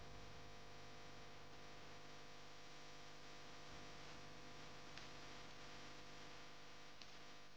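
Faint steady hum made of several held tones, with a soft click about five seconds in and another about seven seconds in.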